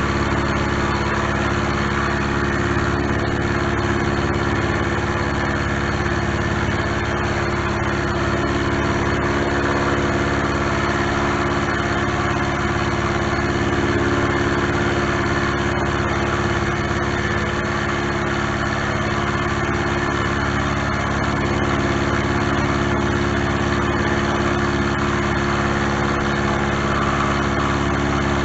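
Milling machine running steadily, its cutter taking a cut along a steel block under power table feed.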